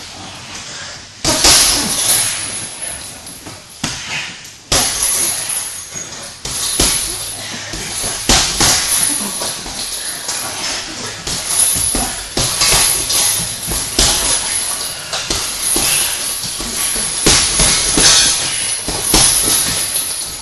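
Two grapplers scuffling on training mats: irregular rustling and sliding of bodies and clothing against the mat, with sudden thumps about a second in and again near five seconds.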